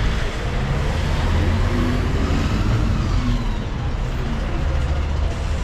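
City street traffic with a bus engine running close by at the curb: a loud, steady low rumble under the noise of passing cars.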